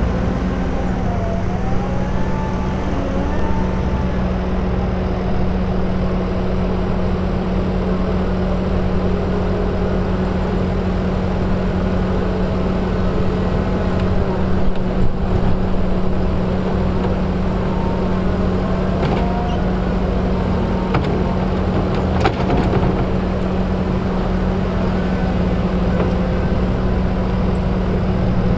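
Diesel engine of a Claas Scorpion 756 VariPower telehandler running steadily under load as it scoops and lifts manure with its bucket, with a whine that rises and falls over the drone and an occasional knock.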